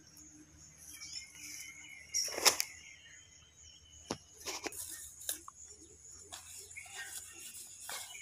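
Rustling of leaves and knocks as a severed cow's head is handled and set down on a banana leaf, the loudest a rustling thud about two seconds in, with faint bird chirps in the background.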